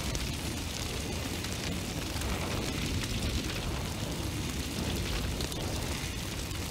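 A steady roar of burning flame, with fine crackling on top.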